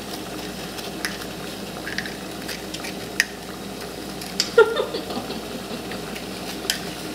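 Lumpia filling sizzling steadily in a pan, with a spoon clicking against a glass jar a few times as brown sugar is scooped out. A brief voice sound comes about four and a half seconds in.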